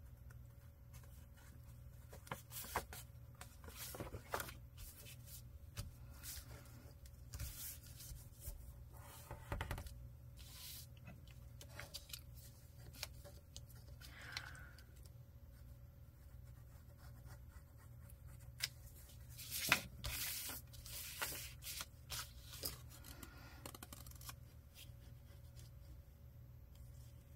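Paper being torn and rustled by hand in short, scattered rips, with light taps and clicks, over a faint steady hum.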